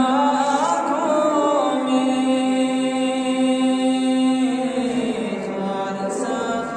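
A man's solo voice singing a naat unaccompanied, in long drawn-out melodic phrases. It opens with a few ornamented turns of pitch, then holds one note for about two and a half seconds before moving into a new phrase.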